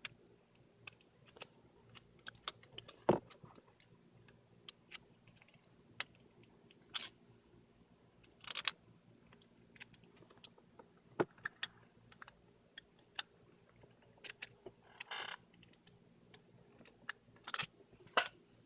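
Scattered light metallic clicks and taps of small screws and a hand tool being handled while fastening a steering wheel to its quick-release hub, some coming in quick pairs.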